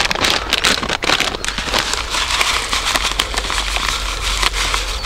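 Foil packet of fluoro bread-crumb groundbait additive crinkling and rustling in the hands as crumbs are shaken out of it into a bucket of groundbait, with many small dense crackles.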